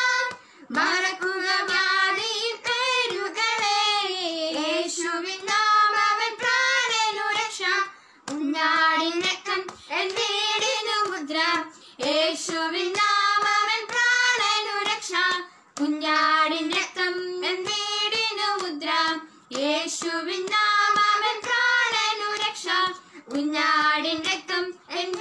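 Two girls singing a Christian worship song together, in phrases of a few seconds with short breaks for breath between them.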